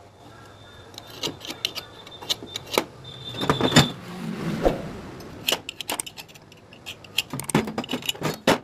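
Steel pipe and thin square steel tube being handled and set against each other on a steel surface: a run of metallic clinks, taps and scrapes, with the loudest knock a little before four seconds in. Twice a short, high metallic ring sounds out.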